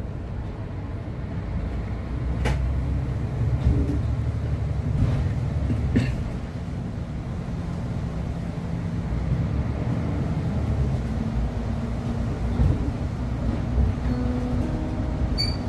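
Cabin noise of a city bus driving along a street: a steady low rumble of the drive and road noise that builds over the first few seconds. Two sharp rattles come about two and a half and six seconds in.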